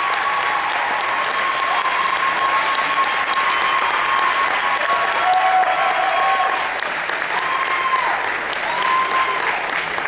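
Audience applauding steadily, with cheering voices calling out over the clapping.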